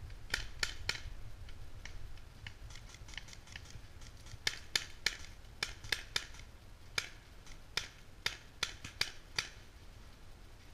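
Paintball markers firing: scattered sharp pops, some single and some in quick runs of two or three, over a steady low rumble.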